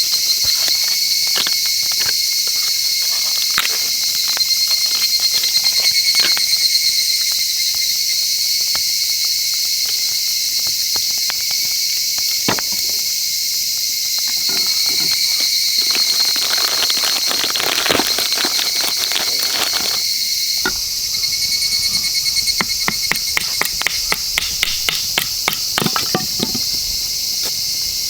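Steady chorus of insects chirring in high, even tones. Scattered sharp clicks and knocks run throughout, with a quick series of them near the end.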